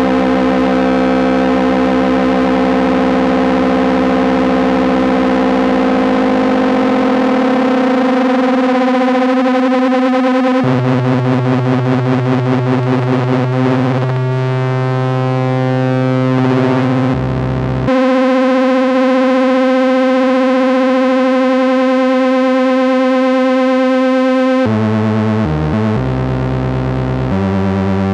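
Vintage Korg MS-20 analog monosynth playing sustained notes through ring modulation and its newly installed pulse width modulation routing. The tone sweeps and shifts as knobs are turned, then held notes change pitch several times, with a quick run of notes near the end.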